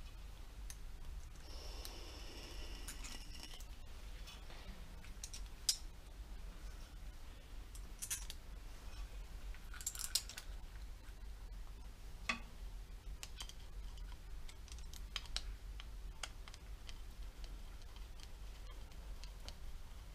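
Scattered small clicks and clinks of hand tools and small parts being handled during bench work on a petrol trimmer, with a brief scraping a couple of seconds in. A steady low hum runs underneath.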